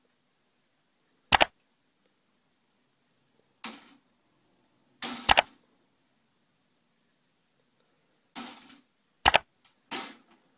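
Several sharp knocks at irregular intervals, some in quick pairs.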